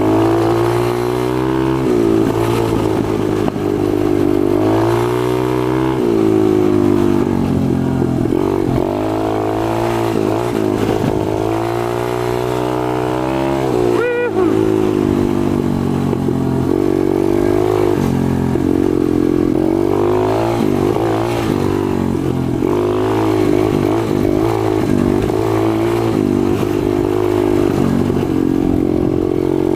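Four-stroke pit bike engine running while being ridden, its revs rising and falling continuously, with one sharp, brief rev spike about halfway through.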